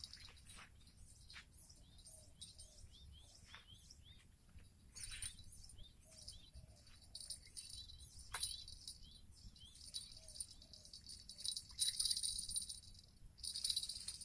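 Wild birds calling with quick falling whistles and repeated short chirps over a pulsing, high-pitched insect chorus, growing louder in waves toward the end.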